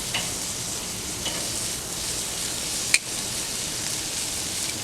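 Bacon-wrapped shrimp sizzling steadily on a hot grill, with one sharp click about three seconds in.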